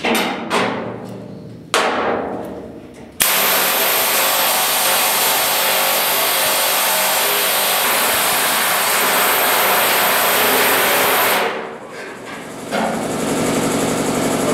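Pneumatic air hammer on the truck bed's steel inner box side. A few single blows leave the sheet metal ringing, then about eight seconds of continuous rapid hammering stop abruptly, and the tool runs again, quieter, near the end.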